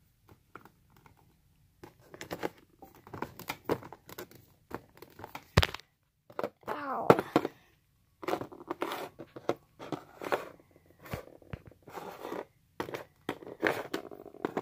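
Small plastic toys handled on a cardboard box lid: an irregular string of clicks, taps and scrapes as a plastic toy fridge's door is opened and shut and a pet figure is moved, with a brief gliding vocal sound about seven seconds in.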